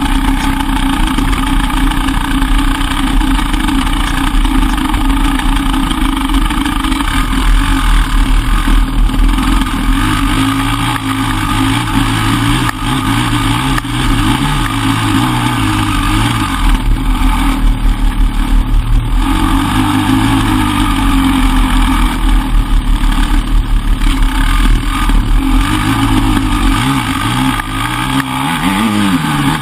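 Loud enduro motorcycle engine running on a dirt trail, its revs rising and falling over and over as the throttle is worked.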